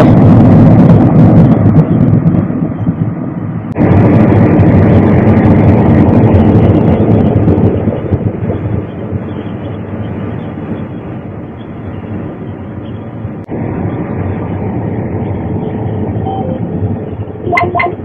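Steady running noise of a John Deere combine harvesting wheat, heard from inside the cab: engine, threshing and fan noise together. Its loudness jumps up about four seconds in, falls off around eight seconds and rises again a little after thirteen seconds.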